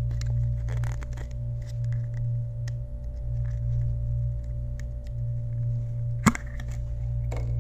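Plastic end cap of a cardboard poster mailing tube being worked loose by hand, with faint small clicks and rubbing, then popping off with one sharp pop a little past six seconds in. A steady low hum runs underneath.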